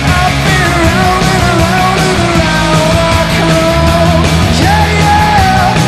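Rock band playing live: electric guitar and bass guitar over a steady beat, with a held, wavering melody line on top.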